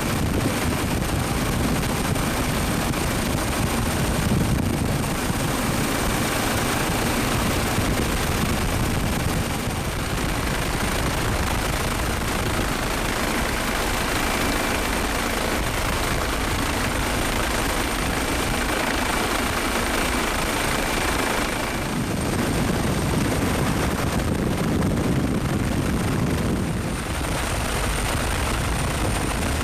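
Steady helicopter noise: rotor and turbine engine running evenly, with a thin, steady high whine on top.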